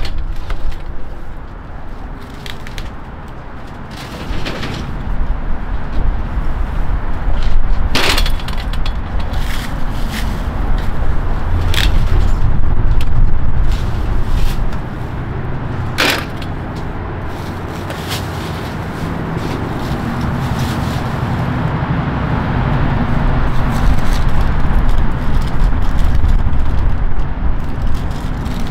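Cases of 2-liter soda bottles being pulled from a delivery truck's side bay and stacked onto a hand truck, with a handful of sharp clacks, over a loud low rumble.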